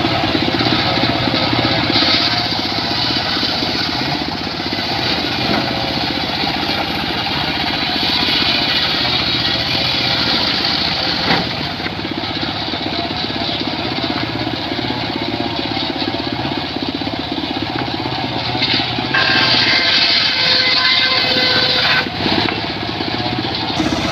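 Circular saw running steadily while cutting wood. The cutting noise grows louder and higher for a few seconds about three quarters of the way through.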